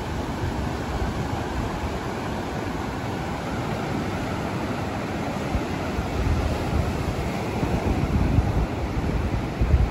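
Mediterranean surf breaking and washing up a sandy beach, a steady rushing noise. Wind buffets the microphone with a low rumble that grows gustier in the last few seconds.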